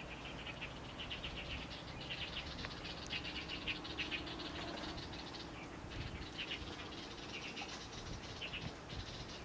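Rapid high chirping, about ten chirps a second in trains lasting a few seconds, from creatures in the grass and brush. A faint steady engine drone from the low-flying ultralight aircraft lies underneath in the middle.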